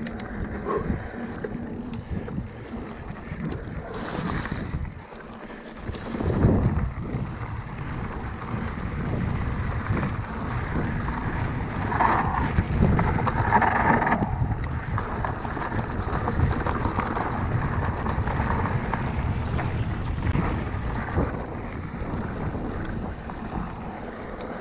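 Wind rushing over the microphone while the tyres of a Cannondale Moterra electric mountain bike roll over a dirt and gravel trail. The bike gives frequent small knocks and rattles on the rough ground.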